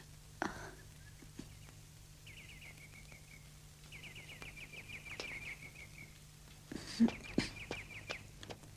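Birds chirping in repeated trills of quick falling notes, with a few faint knocks and a louder knock about seven seconds in.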